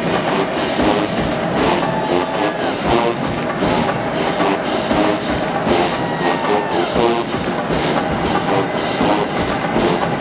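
Band music with held pitched notes over a steady drum beat, typical of an HBCU marching band playing in the stands.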